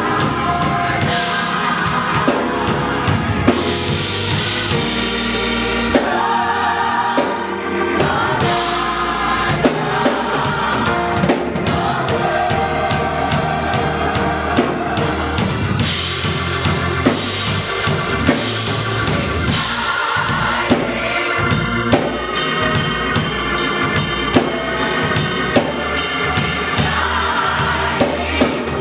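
Gospel choir singing with a drum kit keeping a steady beat.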